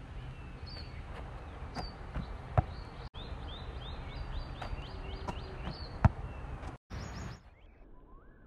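Outdoor background with small birds chirping repeatedly and a few sharp thumps, the loudest two about three and a half seconds apart. Near the end the chirping turns lower and more regular over a quieter background.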